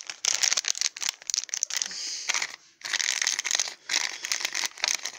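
Crinkling of a small packaging bag as it is handled and opened by hand: dense, irregular crackles with a couple of brief pauses.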